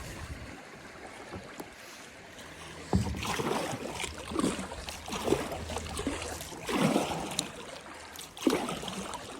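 Kayak paddle strokes dipping and swishing through river water, about one a second, starting with a sharp knock about three seconds in.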